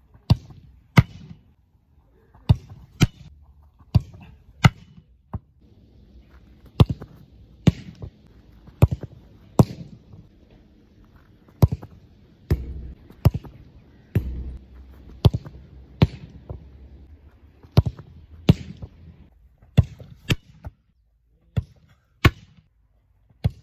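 A football being punted again and again: over twenty sharp thuds of a boot volleying the ball, many coming in pairs less than a second apart.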